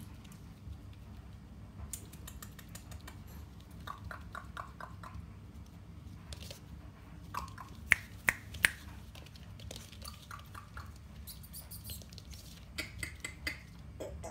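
Scattered soft clicks and rustling as puppies play on a blanket, then three sharp clicks in quick succession about eight seconds in.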